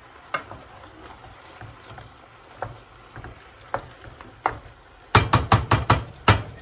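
Wooden spoon stirring raw chicken pieces and onion in a deep metal pot, with an occasional knock of the spoon against the pot. Near the end comes a quick run of about seven sharp knocks of the spoon on the pot in just over a second.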